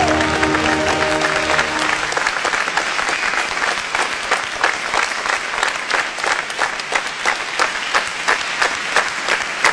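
An audience applauding, with the last held notes of the act's music dying away in the first two seconds. Toward the end the clapping thins into more separate, distinct claps.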